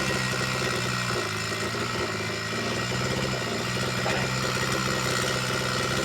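Two-stroke chainsaw engine idling steadily between cuts.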